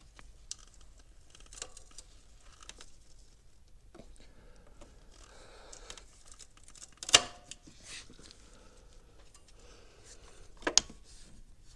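Worn, frayed stretch-fit rubber serpentine belt on a 2020 Chevrolet Silverado engine being cut off: quiet rubbing and small clicks, with two short, sharp snips, about seven seconds in and again near the end.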